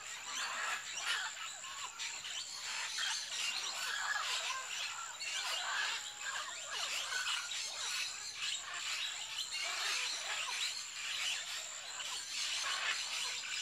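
A large mixed flock of parrots and macaws squawking and chattering, many short calls overlapping without a break.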